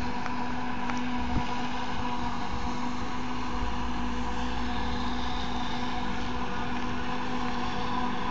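New Holland FX60 forage harvester chopping standing maize, with the tractor pulling the forage trailer beside it: a steady, unbroken machinery drone with a constant hum.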